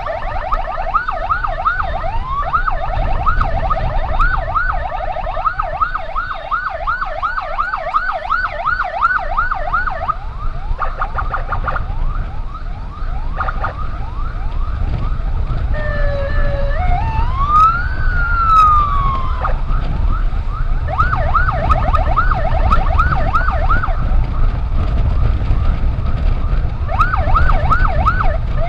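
Electronic emergency-vehicle siren in fast yelp mode, about four rapid up-down sweeps a second, for the first ten seconds or so. About halfway through it switches to one slow wail that rises and then falls, and it returns to short yelp bursts twice near the end, over a steady low rumble of road and engine noise.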